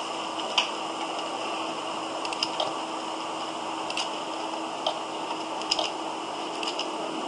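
Computer mouse button clicks picked up by the desk microphone, single clicks and quick double-clicks opening folders, over a steady microphone hiss with a faint low hum.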